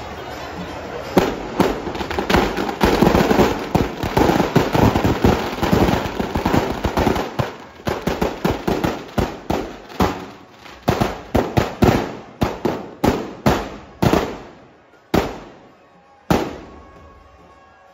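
Firecrackers packed inside a burning Dussehra effigy of Kumbhakarna going off. First a dense, rapid crackle of bangs, which after several seconds thins into separate loud bangs a fraction of a second apart, growing sparser near the end.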